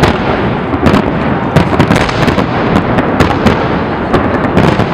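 Large fireworks display: aerial shells bursting in rapid succession, many sharp bangs, some close together, over a continuous crackling rumble.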